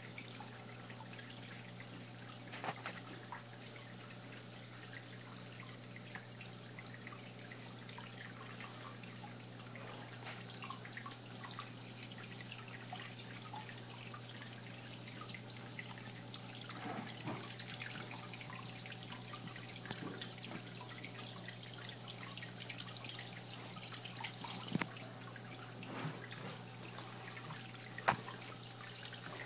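Water trickling in a planted paludarium, with a scattering of separate drips and a low steady hum underneath.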